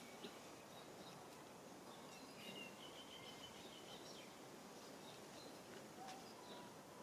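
Near silence: faint outdoor ambience with a few faint, thin bird chirps, clearest a little past the middle.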